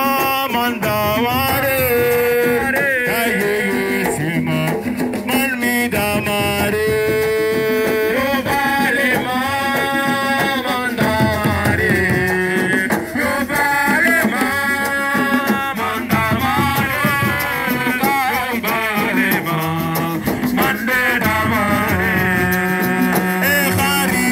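Music: a voice singing long, wavering, ornamented lines over instrumental backing.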